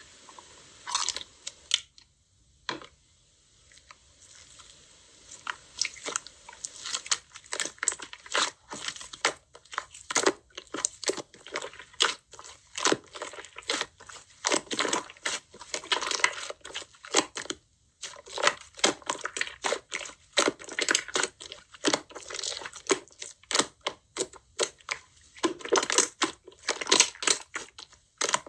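Slime being pressed, squished and poked by hand, making quick crackly, crinkly popping sounds. After a brief lull near the start they come in a dense run.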